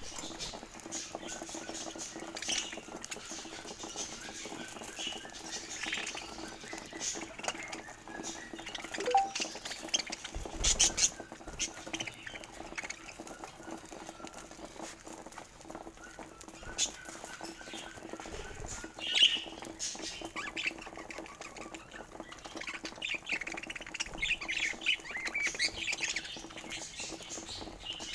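Pet budgerigars chirping and squawking, with scattered clicks and taps from the birds moving about; a sharp call about two-thirds through and a busier run of chirping near the end, over a faint steady hum.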